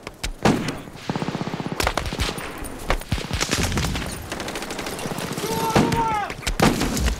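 Gunfire in a battle: rapid bursts of automatic fire mixed with single shots.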